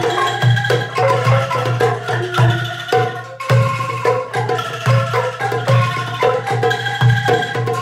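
Bamboo angklung ensemble playing a melody in short, ringing pitched notes over a steady low bass pulse, with a brief break about three seconds in.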